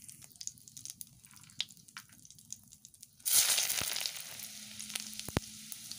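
Cumin seeds crackling faintly in hot mustard oil in a kadai. A little over three seconds in, a loud sizzle starts suddenly as garlic goes into the hot oil, and it keeps sizzling with scattered pops.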